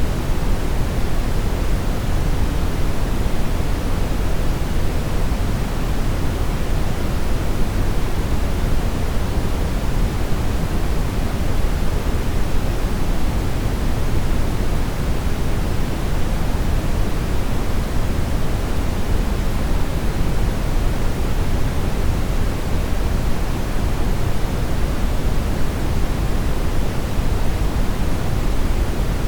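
Television static: the steady, unchanging hiss of a TV with no signal, fuller in the low range than the high.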